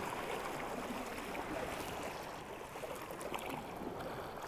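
Sea water washing steadily against a rocky shore, a continuous wash of small waves.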